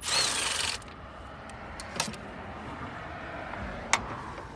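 A cordless ratchet runs briefly with a whine, spinning out an oil filter housing bolt. Then there are two sharp metallic clinks, about 2 seconds and 4 seconds in, as tools or the bolt are handled.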